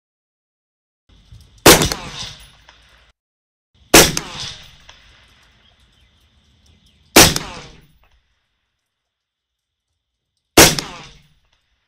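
Four single shots from a Radical Firearms integrally suppressed 5.56 AR-15 firing M855 ammunition. The shots are slow aimed fire, two to three and a half seconds apart, each a sharp report with a brief ringing tail.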